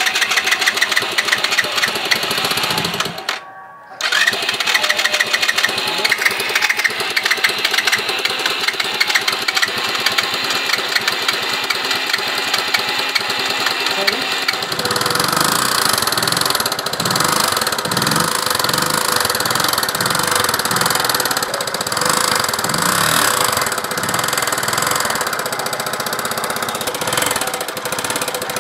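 Mahindra Duro 125cc single-cylinder four-stroke scooter engine running with a horrible, rapid knocking from the cylinder head. The knock comes from the rocker arm, worn and grooved from running without oil, striking the cam as it turns.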